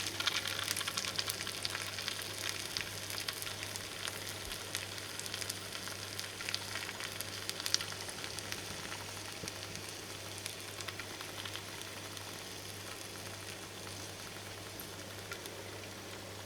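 Salted mackerel sizzling and crackling in a hot microwave grill pan, with the crackle thinning out over the seconds, over a low steady hum.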